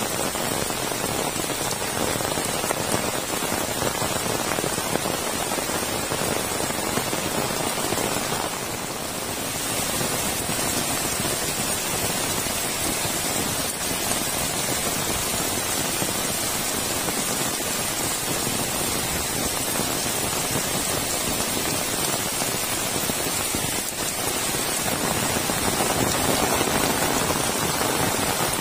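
Heavy rain pouring steadily, an even wash of downpour noise, briefly a little softer about nine seconds in.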